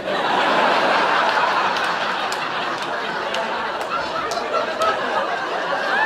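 Comedy club audience laughing, breaking out all at once and slowly dying down.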